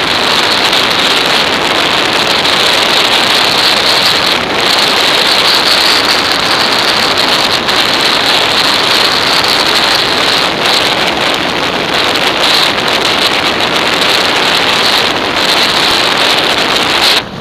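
Wind rushing over an action camera's microphone on a moving motorcycle: a loud, steady roar with no clear engine note. It drops briefly near the end.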